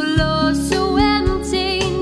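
A young woman singing held, wavering notes over strummed acoustic guitar and a band backing with a steady beat: a produced pop-acoustic song.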